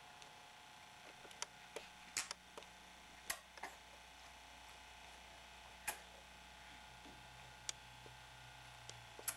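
Irregular sharp taps, about eight of them, as a baby knocks a small toy block about, over a steady background hum and hiss.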